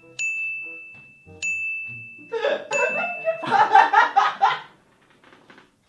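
A bell-like ding sound effect struck three times, a little over a second apart, each ringing on one high tone. A man's voice joins partway through.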